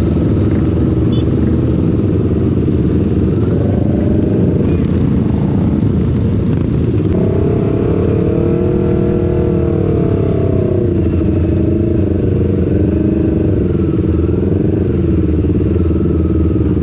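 Sport motorcycle engine and exhaust heard from the rider's seat in a group of riding motorcycles, a dense steady low rumble. About seven seconds in, the engine note rises and falls in slow swells for several seconds as the throttle is eased on and off.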